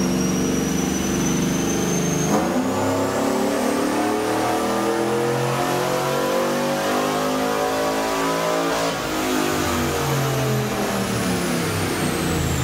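The cammed 6.0 L LS2 V8 of a 2006 Chevrolet Trailblazer SS runs steadily. About two seconds in it begins one long, smooth rise in revs lasting roughly six seconds, then comes off and winds down, with a high whine rising and falling along with it. This single unbroken sweep is the shape of a chassis-dyno pull.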